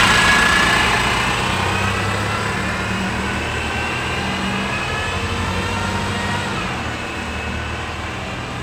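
Diesel bus engine pulling away, its note slowly rising as it gathers speed while the sound grows steadily fainter as the bus drives off.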